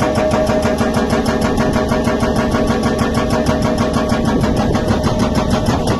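Tata Hitachi excavator working an SSI 81 hydraulic breaker: a loud, steady, fast hammering of about eight blows a second over the machine's running engine.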